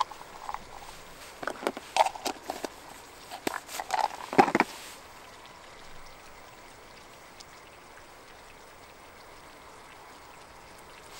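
Clinks and knocks of metal cookware, a utensil against a thin frying pan, for about the first five seconds, some of them ringing briefly; after that only a faint steady hiss.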